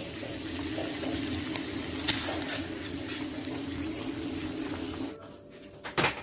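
Water at a rolling boil in a metal pot on a stove, a steady bubbling hiss that stops about five seconds in. A single short knock near the end.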